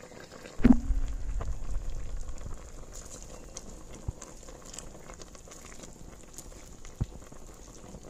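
A pot of soup boiling, with a steady bubbling. About half a second in, a loud thump is followed by a couple of seconds of low rumble, and two light knocks come later.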